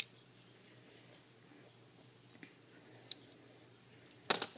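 Small plastic minifigure parts clicking as they are handled and pressed together: a few faint clicks, then a louder quick cluster of clicks near the end.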